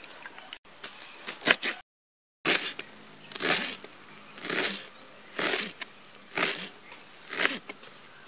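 Fresh coriander swished in a tray of water, then, after a short break, a knife cutting through a bunch of coriander stems on a plastic cutting board, about one cut a second.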